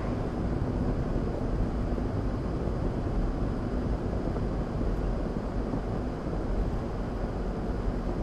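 Steady road noise inside a car cruising at about 30 mph: a low, even rumble of engine and tyres on a wet road, picked up by the dashcam.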